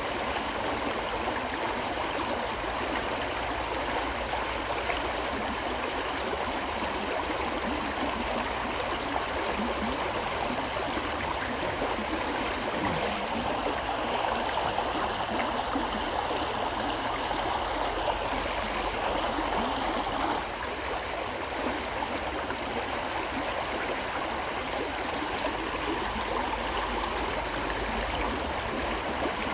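River water flowing steadily: a continuous, even rush of running water with a light babble, dipping slightly in level about two-thirds of the way through.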